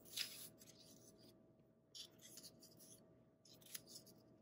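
Faint rustling and light scraping of paper strips being slid and shuffled across a cutting mat by hand, with a few brief louder rustles: one about a quarter second in, another around two seconds, and one near the end.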